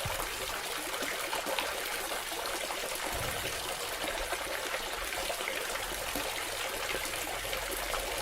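Water trickling steadily down a small tabletop cement waterfall fountain.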